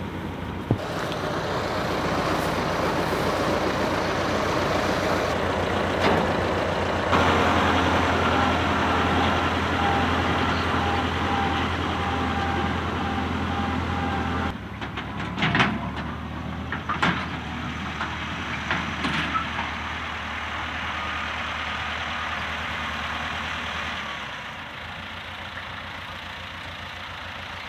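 Tractor engine running steadily, changing abruptly in level and tone a few times, with a cluster of sharp knocks about halfway through.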